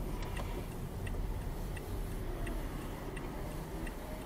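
Car's turn-signal indicator clicking steadily, about three clicks a second, over a low engine and cabin rumble while the car idles at a stop.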